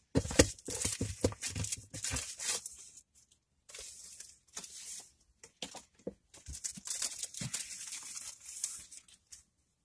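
Packaging from a subscription box being handled and unwrapped, rustling with small clicks in several stretches, with a short pause about three seconds in.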